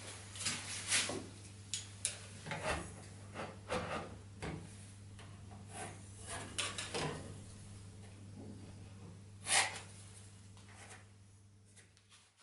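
A pencil scratching short marking strokes on a planed wooden tabletop, with a folding rule handled against the board, in irregular scratches and rubs. The sharpest stroke comes about nine and a half seconds in, over a steady low hum.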